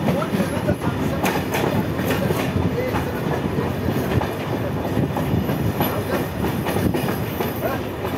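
Passenger train running, heard from aboard: a steady rumble of wheels on rail with irregular clicks as the wheels cross rail joints.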